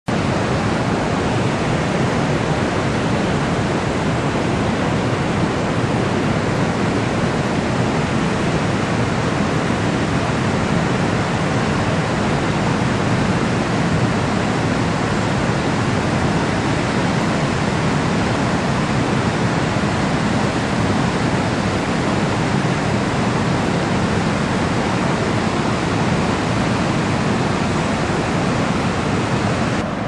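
Shallow river running over rocks and riffles: a steady, even rush of water.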